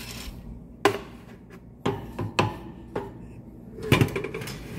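A wooden spatula knocking against a metal roasting tray of coffee beans in an oven, several separate sharp knocks with a quick cluster of clatter near the end.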